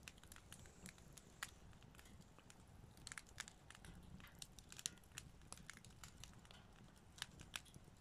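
Wood fire crackling inside a steel washing-machine-drum fire pit: faint, irregular sharp pops and snaps, coming thicker from about three seconds in.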